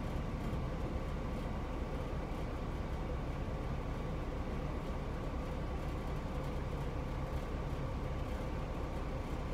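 Steady low rumble and fan hiss of a semi-truck cab's air conditioning running front and back, with a faint steady hum.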